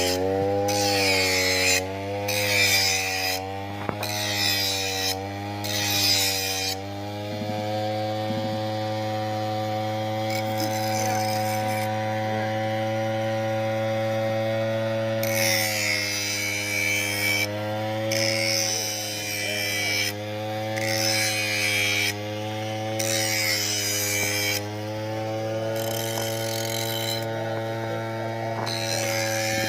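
Small petrol engine of a brush cutter running, its pitch dipping and recovering under load as it cuts grass. Bursts of sharper hiss come and go, quickly at first and in longer spells later.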